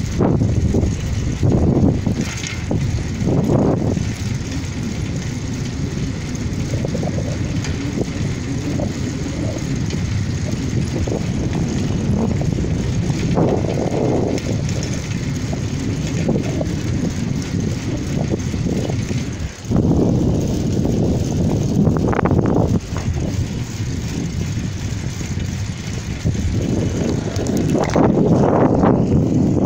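Wind buffeting the microphone of a handlebar-mounted phone on a moving bicycle: a loud, low rumble that swells and eases in gusts, with a brief drop about two-thirds of the way through.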